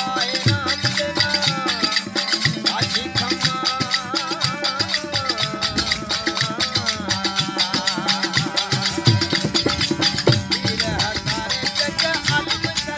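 Parkari folk bhajan music: a wavering melody line over regular drum beats and a continuous high rattle of small percussion, with no words sung.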